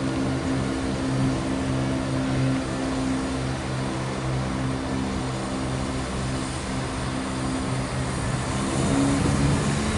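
Class 168 diesel multiple unit's underfloor diesel engines under power as the train pulls out of the station, a steady low engine drone. The note rises slightly and grows louder near the end as the train draws closer. Unit 168 001 is dragging a second unit, 168 326.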